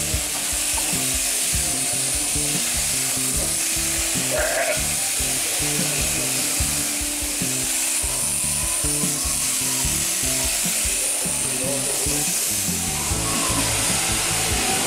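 Background music over the steady buzz of electric sheep shears cutting fleece, with a sheep bleating once about four and a half seconds in.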